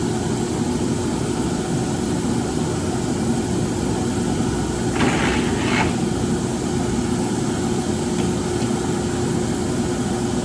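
A 48-inch Froriep vertical turret lathe running under power: a steady machine hum with one constant low tone. Two short bursts of higher-pitched noise come about five and six seconds in.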